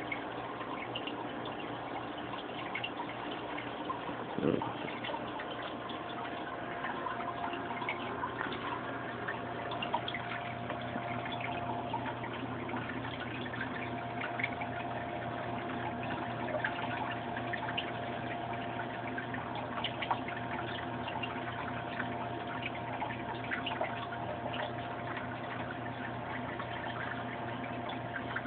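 Turtle tank water bubbling and trickling steadily, with the steady hum of a small aquarium pump underneath. A single dull thump about four and a half seconds in.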